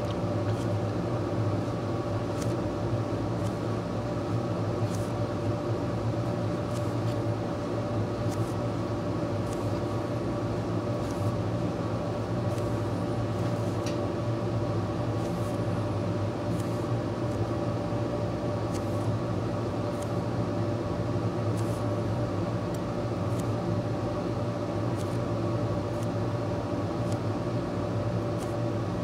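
A steady low machine hum with a few constant tones over it, and faint light ticks every second or two from steel tweezers picking up and setting tiny surface-mount parts on the board.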